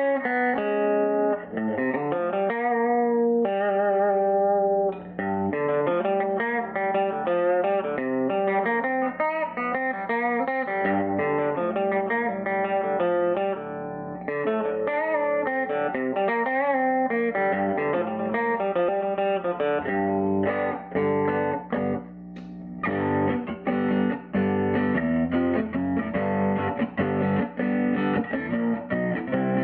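Electric guitar played through a 1951 Gibson BR-6 tube amplifier with its volume turned up past 8: a continuous run of notes and chords, with a brief pause about two-thirds of the way through.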